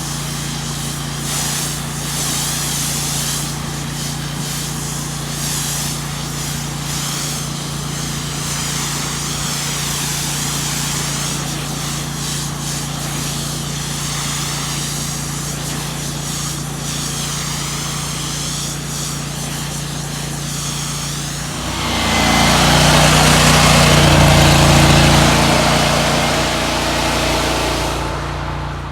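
Pressure washer's engine running steadily under the hiss of the high-pressure water spray. The sound grows louder for several seconds late on, then falls away.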